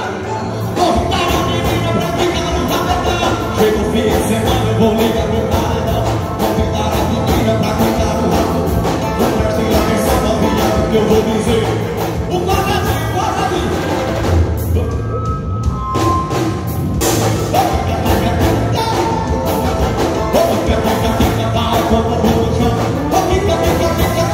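Forró band playing live: accordion, electric guitar, bass and keyboard over a steady drum beat, with a singer's voice.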